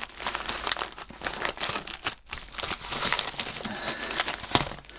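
A mailing package's wrapping crinkling and crumpling as it is unwrapped by hand: a continuous run of rustles and crackles, with a brief lull a little past two seconds in.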